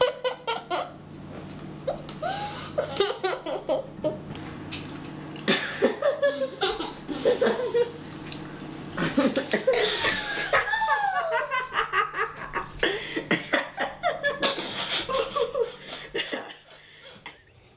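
A man and a young girl laughing and giggling in repeated bursts, with the man's laugh loud and hearty, dying away near the end.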